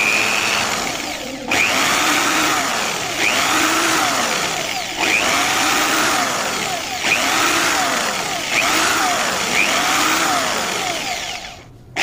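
Cordless drill boring a row of small holes through the side of a small wooden box, in about seven bursts of one and a half to two seconds each, one per hole. The motor pitch sweeps with each hole, and the last burst fades out near the end.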